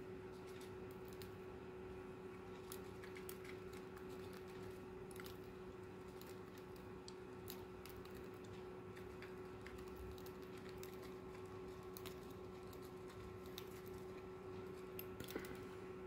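Cockatiels pecking and husking seed in a plastic tray: faint, irregular small clicks of beaks on seed and plastic, over a steady hum.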